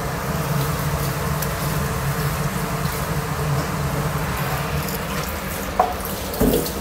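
Sweet and sour sauce sizzling in a wok as pieces of fried battered fish are tipped in and stirred with a wooden spatula, over a steady low hum.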